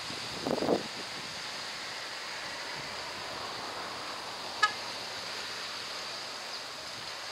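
Twin Pratt & Whitney PT6A turboprop engines of a Beechcraft King Air C90 GTi running at takeoff power as the aircraft rolls away down the runway: a steady, even rushing noise with a faint high whine. A brief louder burst comes just under a second in and a short sharp tick about four and a half seconds in.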